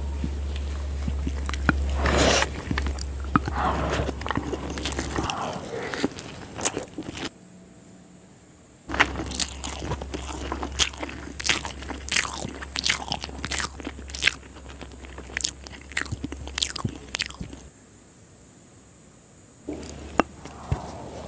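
Close-miked eating sounds of someone eating spicy schezwan noodles: wet chewing full of sharp clicks and crunches, twice falling quieter for a second or two.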